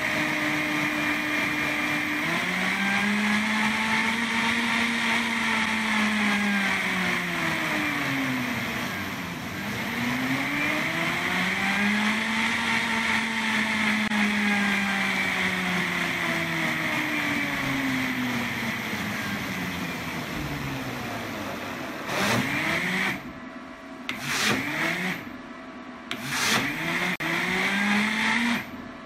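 Bugatti Vento high-speed blender motor running through a programmed speed sequence. Its pitch dips suddenly and climbs back, sweeps down and up again, then slides slowly down to a low. Over the last several seconds it runs in short on-off pulses, each revving up briefly and cutting off.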